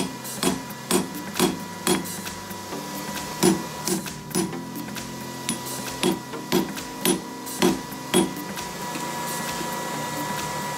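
A hand hammer striking red-hot metal on an anvil as it is forged into shape: a series of blows, about two a second in short bursts with brief pauses, that stop about eight seconds in.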